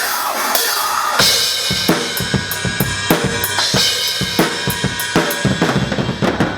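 A drum kit being played in a steady beat: kick drum, snare and cymbals, with the strikes coming in evenly from about a second in.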